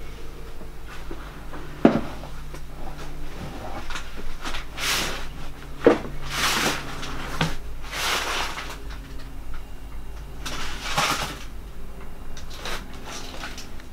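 Rustling handling noise in several short swells, with two sharp knocks, one about two seconds in and another about four seconds later, over a faint steady hum.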